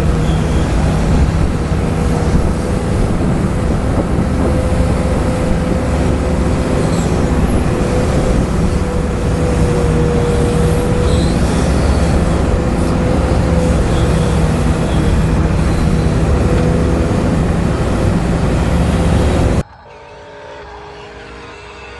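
Radio-controlled excavator's motors running steadily, a constant whine over a rumble, as it digs and dumps sand. Near the end it cuts off suddenly to a quieter, different mechanical hum.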